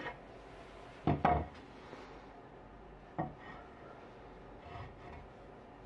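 Wooden knocks from a walnut board being handled against the workbench and vise: two close knocks about a second in, a softer one about three seconds in, and a faint one later.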